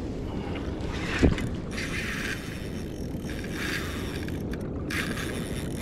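Water rushing and slapping against a plastic kayak hull as the kayak moves, with wind on the microphone, and one sharp knock about a second in.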